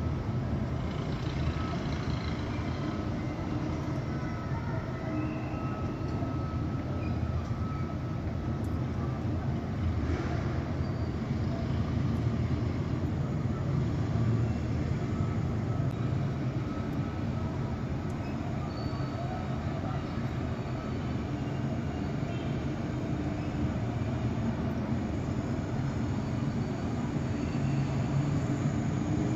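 Steady low rumble of distant city traffic, with faint brief higher tones now and then.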